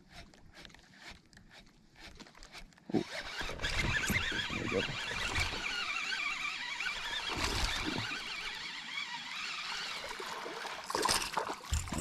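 A small bass is hooked on a topwater bait and wound in to the kayak. A baitcasting reel is cranked and water splashes, starting suddenly about three seconds in, with louder splashing near the end as the fish reaches the side of the kayak.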